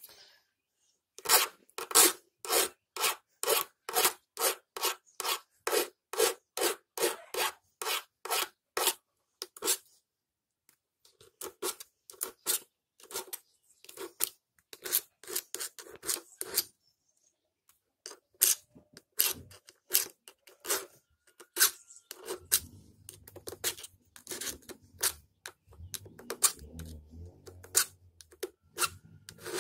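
Steel hand file scraping along the teeth of a chainsaw chain in even strokes, about two a second, with short pauses between runs. It is filing off the burred, catching spots left where the chain struck metal.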